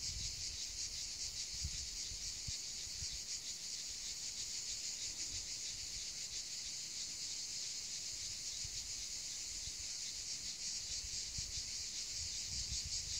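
A steady, dense, high-pitched insect chorus with a fine rapid pulse, unbroken throughout. A soft low wind rumble on the microphone comes and goes, strongest near the end.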